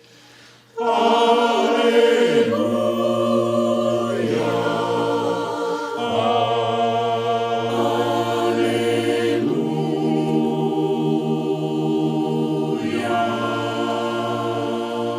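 Mixed four-part choir of sopranos, altos, tenors and basses singing a hymn a cappella in sustained chords. The singing comes back in under a second after a short pause, and the chords change every few seconds.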